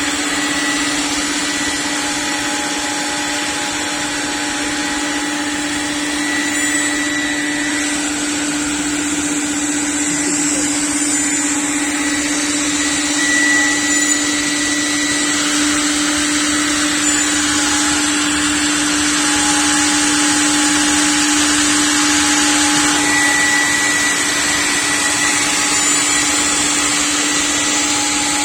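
CNC panel router running, a steady whine over a dense hiss that swells and eases as the machine works.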